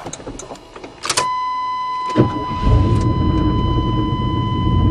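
1988 Chevrolet pickup's engine being started from the cab: a steady high warning tone comes on about a second in, then a click just after two seconds, and the engine catches and settles into a steady idle. The engine is running with no drive belt fitted.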